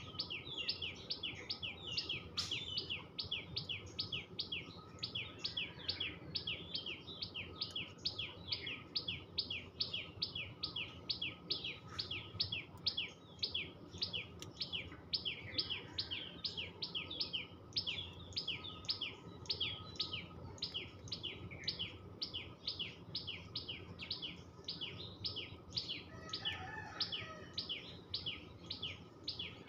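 Common tailorbird (tuntuni) calling: a long, steady series of sharp, repeated chirps, about three or four a second.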